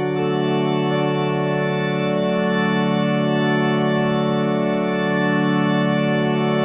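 Background music: one long chord held on an organ.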